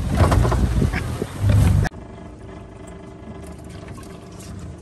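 A boat's outboard motor running, first under a loud, rough burst of noise for about two seconds, which cuts off abruptly. After that the motor's steady hum is left on its own.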